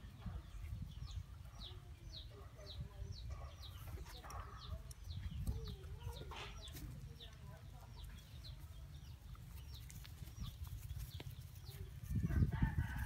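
Chickens clucking, with a high, short, falling chirp repeated about twice a second through the first half, over a steady low rumble. A louder, lower sound comes in near the end.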